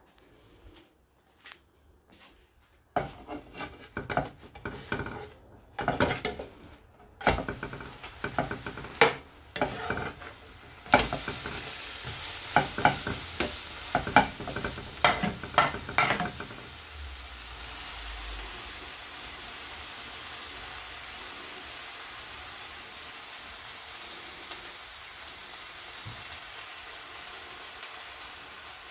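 Bread slices frying in a nonstick frying pan, sizzling, while a metal spoon repeatedly knocks and scrapes against the pan and bread. The spoon clatter starts about three seconds in and stops a little past halfway, leaving a steady sizzle.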